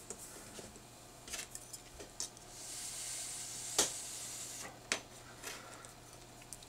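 Light clicks and taps of metal dental waxing instruments being handled and set down on the bench, with a soft airy hiss for about two seconds midway.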